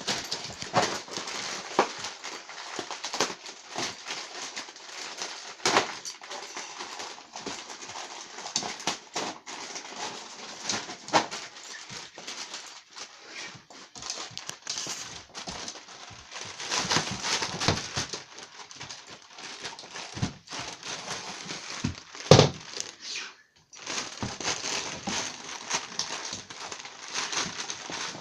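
Dog tearing and crinkling gift wrapping paper: irregular rustling, crackling and ripping, with one sharp thump about three-quarters of the way through.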